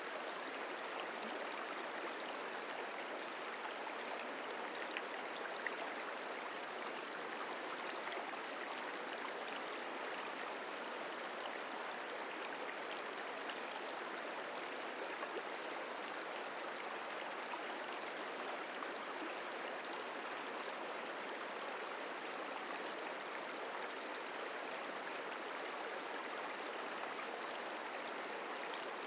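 Merced River flowing: a steady rush of running water.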